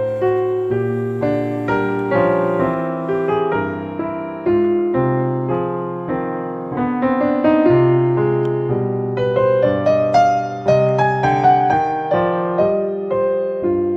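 Background piano music: a steady stream of struck notes and chords that each die away, over a lower bass line.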